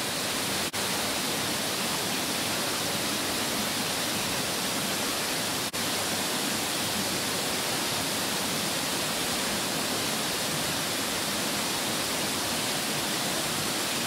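Cranny Falls waterfall: a steady, even rush of falling water, dipping briefly twice, once just under a second in and once near the middle.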